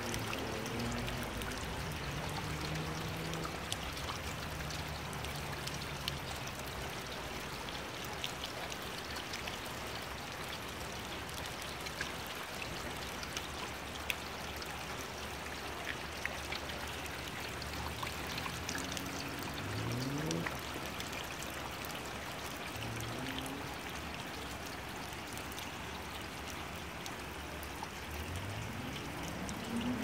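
Steady rain with water running and scattered drips.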